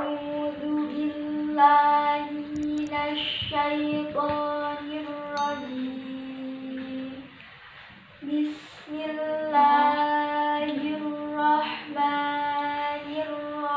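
A girl's voice chanting Quranic recitation in a slow, melodic tilawah style, drawing out long held notes that step up and down in pitch, with a short breath pause about eight seconds in.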